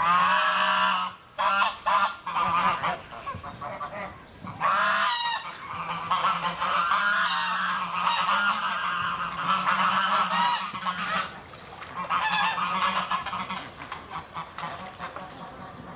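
A flock of white domestic geese honking, many loud calls overlapping in quick runs with brief lulls, thinning out near the end. A low steady hum runs underneath.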